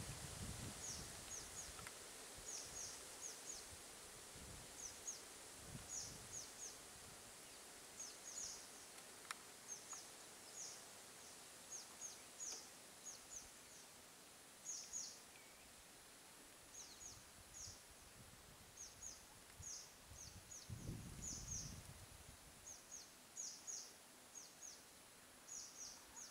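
Faint jungle ambience: quick high-pitched chirps repeating in little groups of two to four, with a brief low rumble about twenty seconds in.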